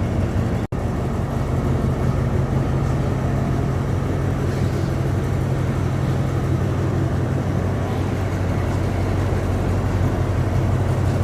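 Diesel train engine idling: a steady low hum with a constant pitch. A split-second dropout comes less than a second in.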